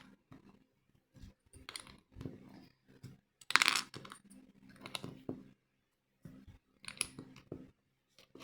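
Plastic LEGO bricks clicking and clattering as they are handled and sorted, with a louder rattle of pieces about three and a half seconds in.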